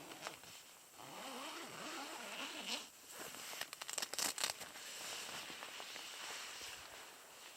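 Fabric rustling, then a zipper pulled in several short rasps about three and a half to four and a half seconds in.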